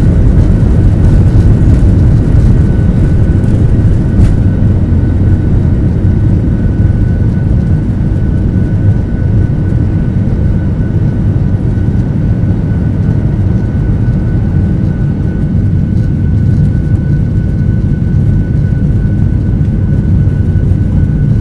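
Cabin noise of a Boeing 737-800 on its takeoff roll and climb-out, heard from a window seat over the wing: its CFM56 jet engines at takeoff thrust make a heavy low rumble with a thin steady high whine. The rumble and hiss ease slightly about four seconds in.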